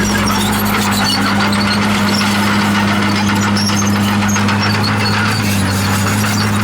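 Komatsu bulldozer's diesel engine running steadily under work, a constant low drone, with faint short high squeaks over it.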